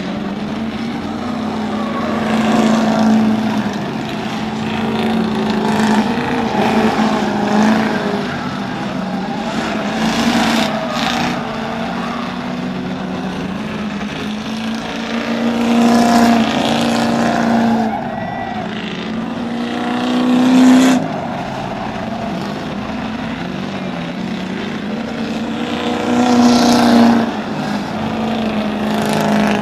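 Ford Crown Victoria V8 race cars running hard around a figure-eight track, several engines at once. The sound swells and its pitch shifts as cars pass close, with the loudest passes about 3, 16, 21 and 27 seconds in.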